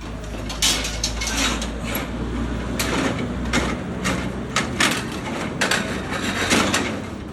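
Irregular metallic clanks and knocks from work on a roller shutter, over a low steady hum that stops about halfway through.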